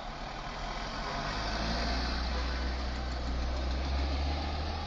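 A motor vehicle's engine idling: a steady low rumble that grows louder about a second in, over a haze of street noise.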